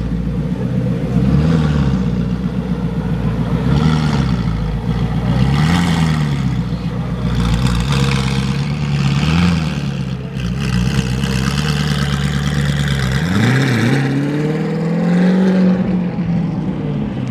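Audi R8 V8 with a GT3 center-exit exhaust rumbling at low speed while pulling away, with several short throttle blips that rise and fall. Near the end a second car's engine comes in, rising in pitch.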